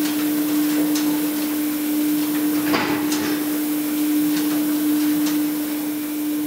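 Newspaper printing press running: a steady mechanical hum with one constant whine, scattered light clacks, and a brief louder clatter about three seconds in.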